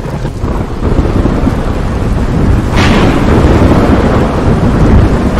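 Thunderstorm sound effect from a logo intro: a continuous deep thunder rumble with rain, and a sharp crack of thunder about three seconds in.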